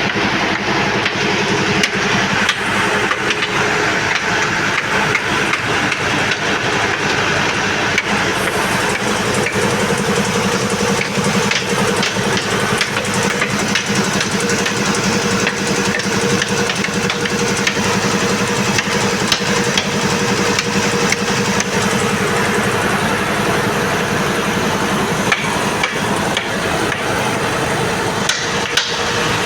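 Montoya air compressor running steadily, its piston pump making a fast, even clatter.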